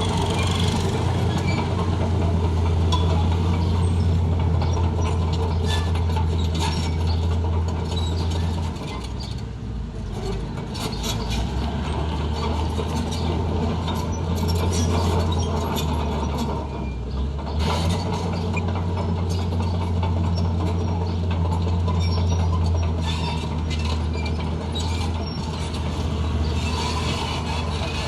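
Crawler bulldozer's diesel engine working steadily under load, with rapid metallic clanking and squeaking from its steel tracks. The engine note eases off briefly about nine seconds in and again around seventeen seconds.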